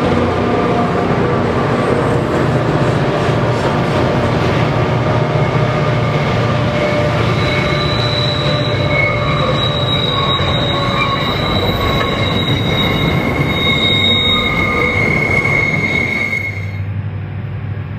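Streamliner diesel locomotives pass close by under load, climbing a grade with their engines throbbing. The freight wagons behind them then roll past with a steady high-pitched wheel squeal from about eight seconds in, and the sound changes abruptly near the end.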